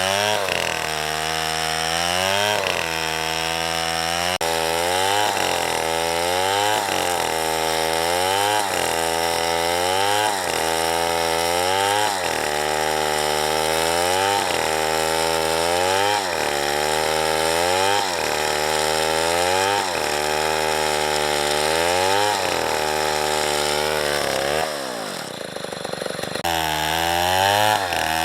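Small two-stroke chainsaw cutting a tree, its engine pitch sagging under load and recovering about every two seconds. Near the end the engine winds down briefly, then revs back up.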